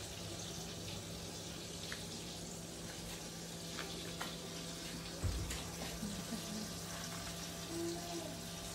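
Steady background noise with a constant low hum, broken by a few faint clicks and a soft thump about five seconds in.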